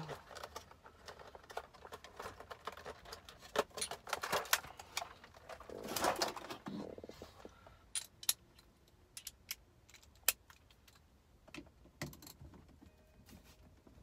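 Metal sockets and tools clinking and rattling in a clear plastic socket organizer, then scattered clicks of a socket and extension being fitted onto the 16 mm steering-wheel nut.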